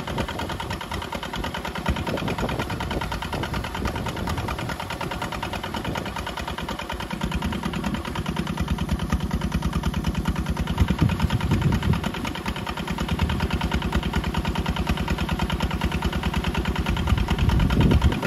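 An engine running steadily with a fast, even pulse. It grows louder from about seven seconds in, eases off after twelve seconds, and rises again near the end.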